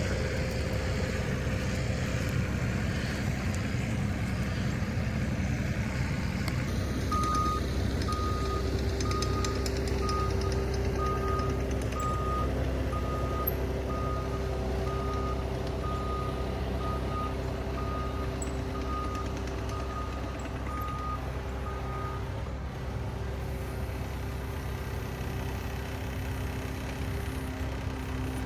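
Skid steer loader's engine running steadily while its backup alarm beeps about once a second, starting about a quarter of the way in and stopping some fifteen seconds later as the machine reverses.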